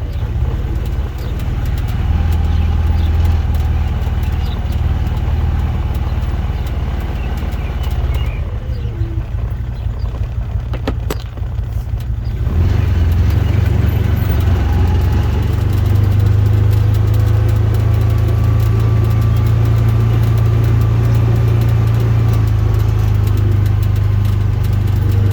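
A motor vehicle's engine running steadily as it is driven. It eases off from about eight seconds in, picks up again after about twelve seconds, and runs at a higher, steady pitch from about sixteen seconds.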